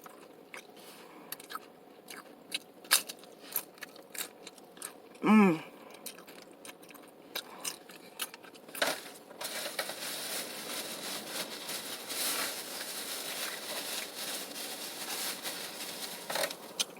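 Close-miked crunching and chewing of nacho tortilla chips: scattered sharp crunches at first, then denser continuous chewing noise from about halfway through. A short hummed vocal sound comes about five seconds in.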